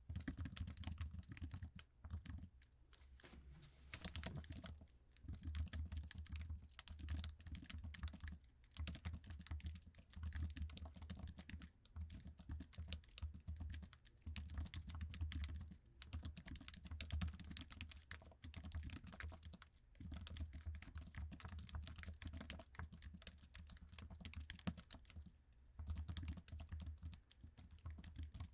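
Continuous fast typing on an Apple iMac's stock keyboard, its low-profile scissor-switch keys making dense clicking with a few short pauses, the longest about two seconds in.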